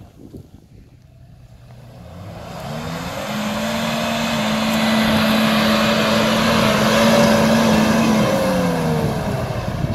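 Suzuki Jimny's engine revving hard under load while climbing a steep off-road slope. The pitch rises over the first few seconds, holds steady at high revs, then drops near the end.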